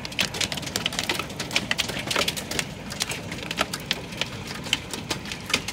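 Hailstones pelting down, a dense, irregular patter of sharp clicks and knocks as they strike the ground and hard surfaces.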